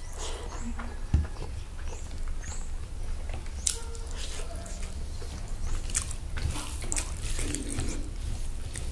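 Close-miked eating sounds of rice and pork curry eaten by hand: chewing, lip smacks and wet mouth clicks, the sharpest a little over a second in, over a steady low hum.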